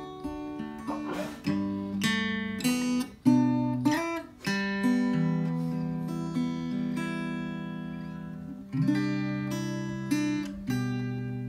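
Cort AD Mini ME OP mini acoustic guitar played fingerstyle: picked notes and chords ringing on, with several sharper strummed chords.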